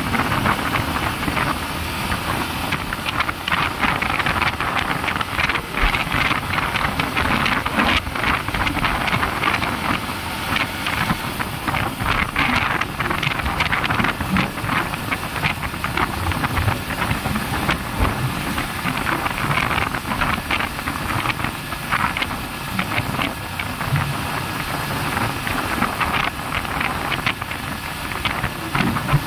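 Wind rushing over the microphone mixed with the engine of a Yamaha motorcycle riding at road speed, a steady noise with constant gusty flutter.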